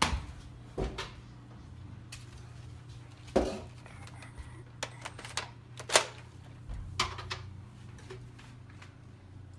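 A handful of scattered sharp knocks and clicks, the loudest right at the start and about 3.5 and 6 seconds in, over a faint steady low hum.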